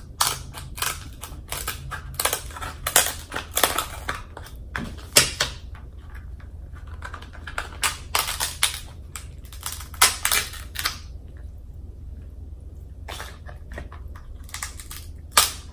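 King crab leg shell being snipped with kitchen shears and cracked open by hand: a quick run of sharp cracks and crunches, a pause of a couple of seconds, then a few more cracks near the end.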